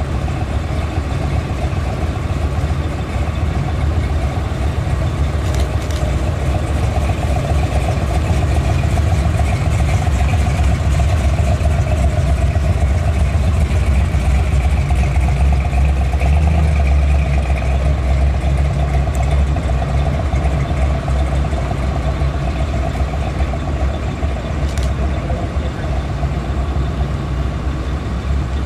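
A line of police cars and other vehicles driving slowly past, a continuous low engine and tyre rumble that swells a little in the middle. No sirens are sounding.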